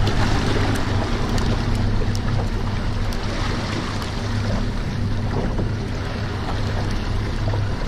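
Wind buffeting the microphone and sea water slapping against the hull of a small open fishing boat, over a low steady hum. A few light ticks come in the first couple of seconds.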